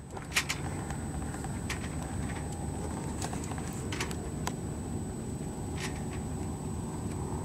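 Boat engine running steadily under way, a low rumble with a faint steady high whine over it and a few scattered short clicks.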